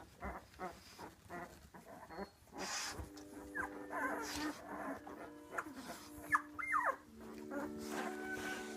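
Week-old Labrador puppies whimpering and squeaking in short cries that bend up and down in pitch, with some light shuffling taps early on. Soft classical music from a radio plays underneath from about three seconds in.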